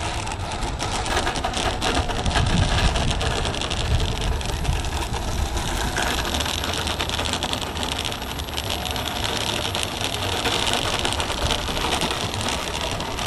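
Small RC model aircraft motor buzzing steadily overhead, with wind rumbling on the microphone.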